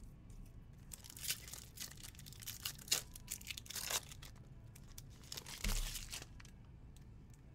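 Foil wrapper of a Stadium Club trading-card pack being torn open and crinkled by hand: a run of crackling rips and rustles lasting about three seconds, starting about a second in. A soft low thump follows a little later.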